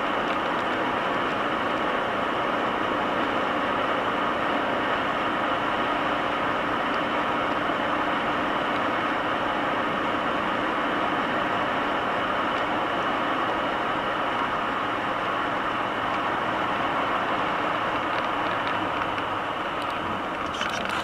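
Steady road and engine noise heard from inside a car driving on a snow-covered highway: a constant rush of tyres and wind over the engine's hum.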